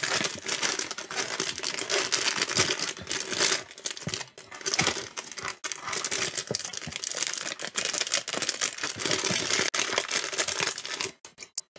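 Plastic snack packaging crinkling and crackling as it is handled and opened close to the microphone, dense fine crackle that stops about a second before the end.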